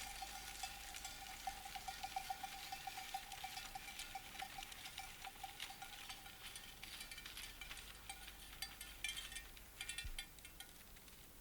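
Sleigh bells on Santa's passing reindeer, jingling with a rapid shimmering shake that grows fainter and fades out near the end.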